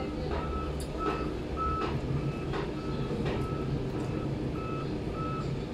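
A vehicle's reversing alarm beeping steadily, nearly two short beeps a second, over a low rumble.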